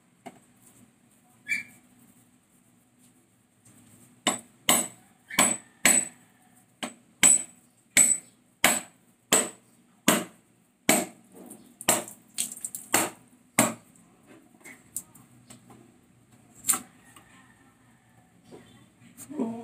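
Mature coconut shell struck again and again with a large machete-style knife, a run of about twenty sharp knocks at roughly one and a half a second, then one more a few seconds later. The blows crack the hard shell around its middle so that it splits into two halves.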